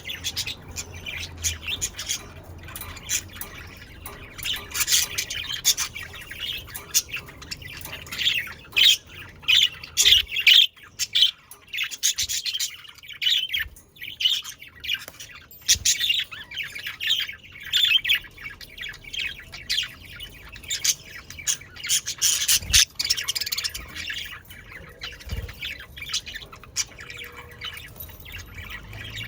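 A flock of budgerigars chattering, with many overlapping short chirps and squawks and a brief lull about halfway through.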